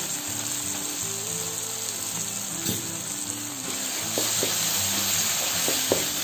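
Sliced onions and tomatoes sizzling in oil in a metal kadai, with a wooden spatula knocking and scraping against the pan as ginger-garlic paste is stirred in from about four seconds on. Background music plays throughout.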